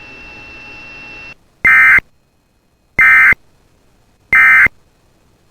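Emergency Alert System end-of-message data tones: three short, identical bursts of buzzing digital signal, evenly spaced about 1.3 seconds apart, marking the end of the alert. Before them, about a second of faint hiss with a thin steady tone.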